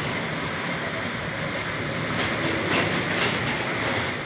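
Steady rumbling mechanical noise with a few faint clicks or rattles about halfway through.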